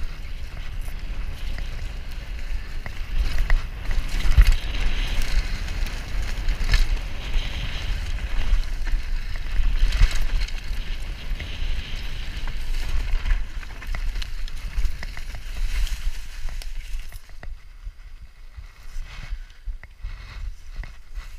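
Downhill mountain bike descending a dirt forest trail at speed: wind rumble on the camera microphone, tyre noise and frequent knocks and rattles of the bike over the rough ground. About seventeen seconds in it quietens as the bike slows and stops.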